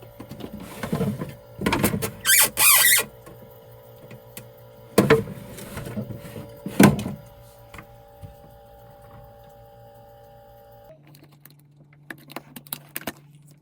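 Steady hum under a string of knocks and scraping handling noises. The loudest is a scrape about two and a half seconds in. Later, after a change in the background, there are a few light clicks.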